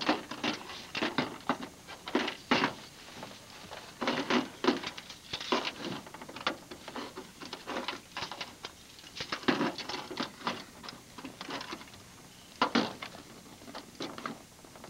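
Irregular rustling and crackling of dry twigs and brush being handled around a trap stake, in short clusters with brief pauses between.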